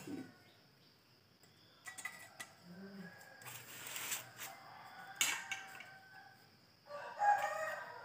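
Knocks and rattles of metal welding clamps and cables and a wooden board being handled. Near the end a rooster crows once, with a falling tail.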